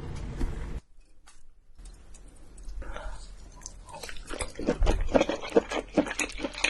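Close-miked chewing and biting of crunchy food, a run of wet, crackly crunches that grows denser and louder over the last two seconds.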